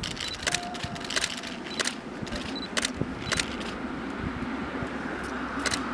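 Distant, steady low rumble of a train of FS ALn668 diesel railcars crossing a viaduct. Sharp, irregular clicks sound close by, about ten over the few seconds.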